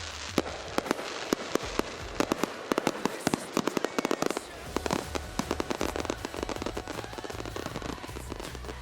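Fireworks going off in a rapid string of sharp reports, several a second, giving way about five seconds in to a denser run of smaller crackling pops.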